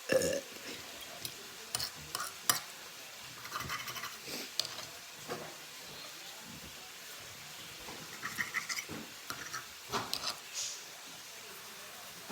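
Irregular clicks and scrapes of eating utensils against a dish during a meal, with the sharpest clicks near the start and about two and a half seconds in.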